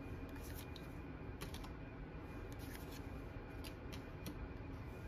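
Trading cards being flipped through by hand: faint soft clicks and rustles as each card is slid off the stack, a few scattered over the seconds, over low room noise.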